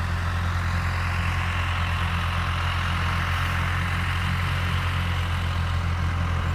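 A steady low mechanical hum, an engine or motor running at an even speed, with a hiss on top.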